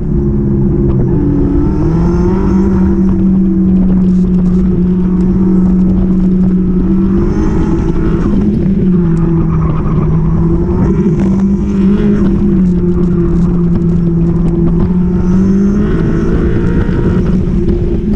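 Car engine heard from inside an open-top cockpit, pulling hard at high revs through an autocross course. The engine note dips and climbs several times as the driver lifts and gets back on the throttle between cones, then rises toward about 6,700 rpm near the end.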